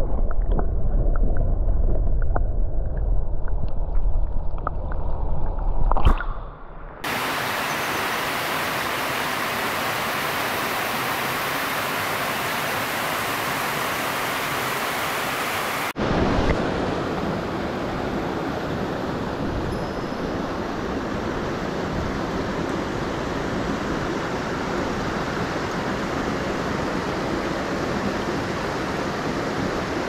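Muffled, low rumble of a mountain stream heard with the microphone under water. About seven seconds in it cuts to the steady open-air rush of the stream running over rocks and a small cascade, with a slight change in tone about halfway through.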